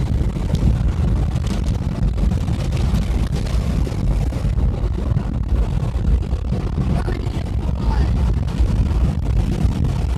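Wind buffeting through partly opened car windows over steady road noise, a loud, continuous low rumble inside the moving car's cabin.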